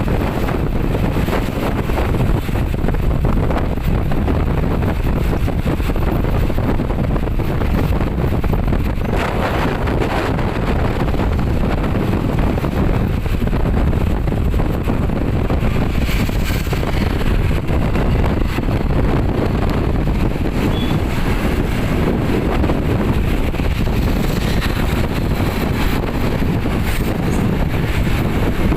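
Steady wind rumble on the microphone over a running vehicle, unbroken throughout.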